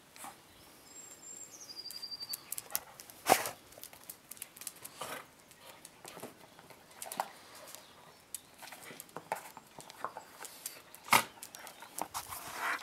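Two dogs playing with a rubber clog on brick paving: scattered knocks, clicks and scrapes as the shoe and paws hit the bricks, the loudest a bit over 3 s in and again about 11 s in. A bird chirps briefly between about one and two seconds in.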